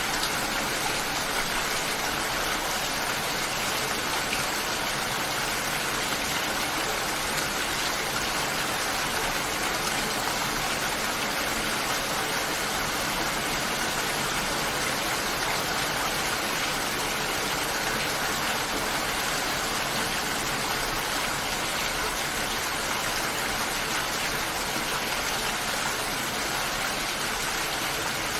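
Rain falling steadily, an even hiss without breaks or changes.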